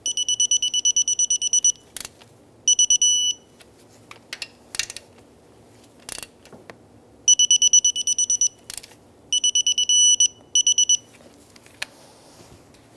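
Digital torque wrench beeping in fast pulses in several bursts as alternator bracket bolts are torqued to 43 foot-pounds. Twice the beeping runs into a short steady tone, the signal that the set torque has been reached. A few sharp clicks of the tool come between the bursts.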